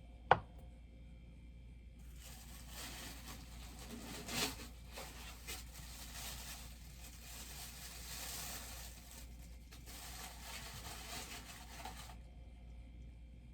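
Packaging being unwrapped by hand, a faint rustling and tearing with a few louder crackles. A single sharp click comes just after the start.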